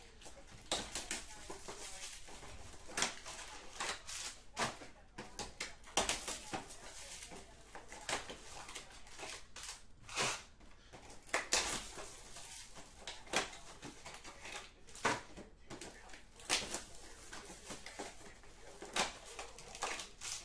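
Wrapped Prizm trading-card packs and boxes handled by hand: irregular crinkling and rustling of the pack wrappers, with sharp clicks and taps every second or two.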